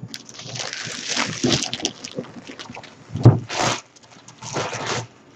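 Plastic shrink-wrap crinkling and tearing as it is pulled off a board game box, with a knock from the box being handled about three seconds in.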